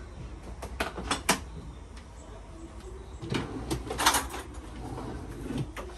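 Kitchen handling sounds while cooking: a few irregular sharp knocks and clicks of cookware, cupboard doors or utensils being moved and set down.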